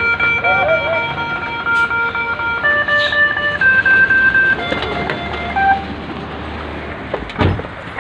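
Heavy truck engine running in the background, with a tune of long held electronic notes over it, each note lasting about a second. A low thump comes near the end.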